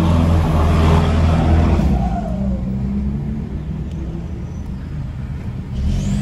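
Chipped Toyota Hilux's turbocharged engine pulling hard under acceleration, heard from inside the cab. It is loud for about the first two seconds, then eases to a quieter run and picks up again near the end.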